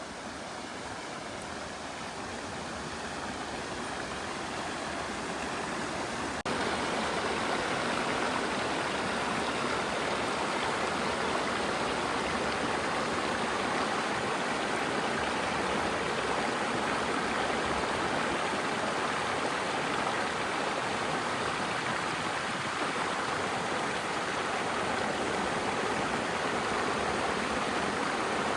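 Flowing stream water rushing steadily, growing louder over the first few seconds, then jumping abruptly to a louder, even rush about six and a half seconds in.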